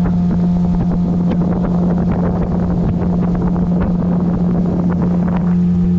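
Boat motor running steadily as the boat travels, a constant hum with wind rushing over the microphone.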